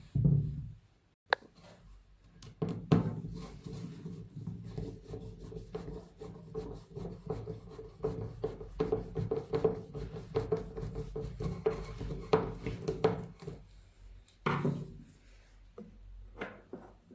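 Homemade disc sander, a sanding disc fitted to a bench grinder's motor, running and grinding against a piece of wood with an uneven scraping rub. The motor and sanding stop about fourteen seconds in, followed by a few light knocks.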